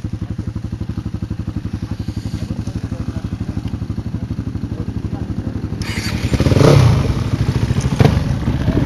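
ATV engine idling with a steady, even chug. About six seconds in it is revved up and gets louder, and there is a sharp knock about eight seconds in.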